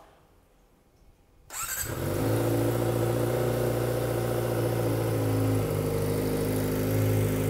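Kawasaki Ninja ZX-25R's 250 cc inline-four starting about a second and a half in, then idling steadily through an aftermarket Smoke Muffler exhaust fitted with its dB killer. Not too loud.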